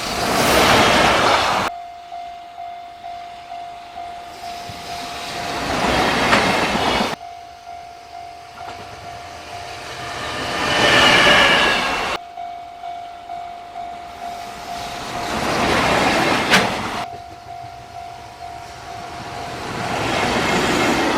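Several short clips cut one after another: in each, a Japanese level-crossing warning bell rings in a steady, rapid clang, then a freight train passes with a loud, swelling rush of wheels and wagons on the rails. Each clip cuts off suddenly into the next.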